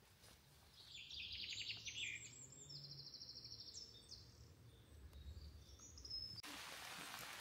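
A small songbird sings several high, rapid trilled phrases, the first falling in pitch, then a few short whistles. Near the end a steady hiss of rain sets in abruptly.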